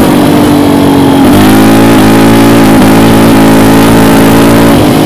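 Yamaha Raptor 700 ATV's single-cylinder engine running hard at high revs, holding a fairly steady pitch with a couple of brief dips. The engine has been cutting out near the top end as if on a rev limiter, which the owner suspects comes from the clutch switch circuit.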